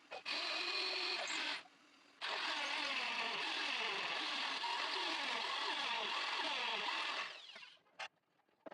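An electric power tool running in two stretches: a short burst of about a second, a brief pause, then about five seconds of steady running with its pitch wavering and dipping, then a couple of short knocks.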